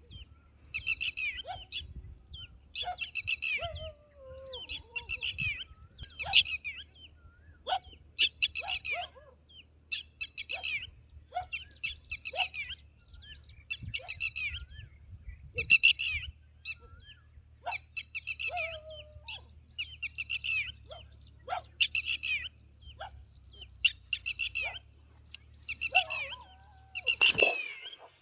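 Small birds chirping in short bursts of rapid, high notes every second or two, with sharp single call notes in between.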